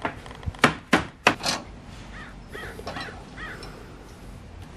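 A few sharp knocks and clicks in the first second and a half, then a crow cawing four times in quick succession.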